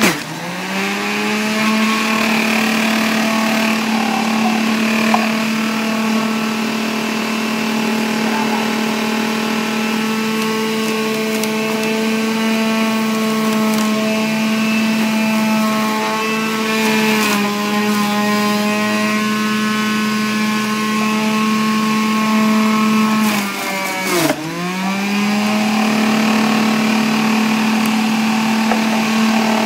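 Black+Decker centrifugal juicer's motor running steadily with a high whine as carrots are fed through its shredding disc. Twice, near the start and again about 24 seconds in, its pitch drops sharply and then climbs back up.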